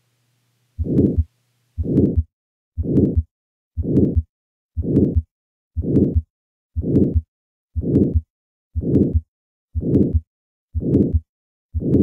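Heart sounds of aortic stenosis recorded through a stethoscope: at each beat a crescendo-decrescendo systolic murmur fills the gap between the first and second heart sounds. The beats repeat steadily about once a second.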